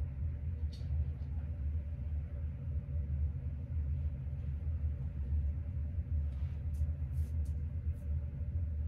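A steady low rumbling hum, with a few faint light ticks near the end.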